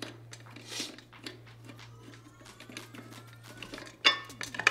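Threaded knob being unscrewed by hand from the metal arm bracket of a 360 photo booth: small clicks and rattles of the knob and bracket, then a sharp metallic clank about four seconds in.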